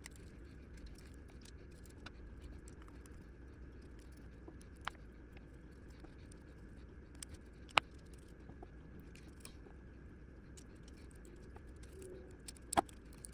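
Scattered small sharp clicks and taps from handling a folding knife as it is taken apart, tools and small parts touching, over a faint steady room hum. The loudest clicks come about five, eight and thirteen seconds in.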